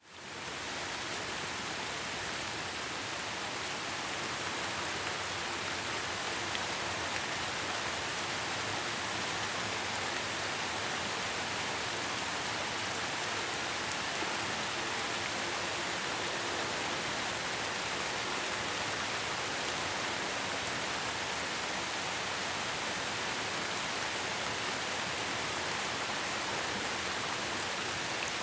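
Steady rain falling, an even, unbroken hiss that fades in at the very start and then holds level.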